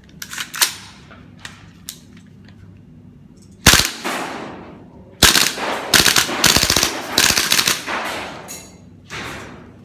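VFC Mk18 Mod1 gas-blowback airsoft rifle firing: a single shot about a third of the way in, another a second and a half later, then a rapid string of shots lasting about two seconds, and one more shot near the end. Each shot has the rifle's bolt cycling and echoes in the room.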